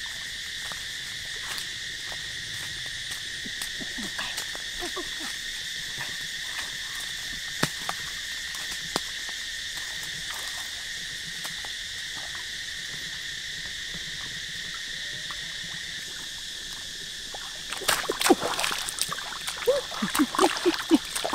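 Steady chorus of calling insects and frogs, with scattered light steps. Near the end, water splashing as feet wade into the shallow pond and a bamboo fish trap is set down in the water.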